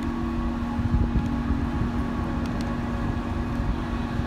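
A berthed long-distance car ferry's onboard machinery running with a steady low hum and drone, over an uneven low rumble.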